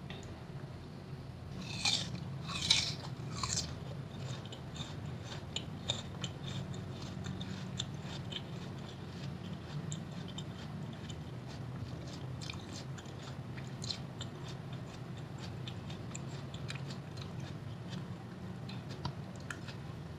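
Close-miked crunching bites into firm fresh fruit of rujak buah: three loud crunches about two to four seconds in, then continuous crisp chewing. A steady low hum lies underneath.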